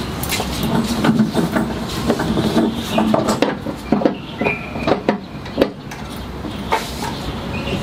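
Irregular small clicks and knocks of hand tools and metal parts being handled on the van's floor during repair work.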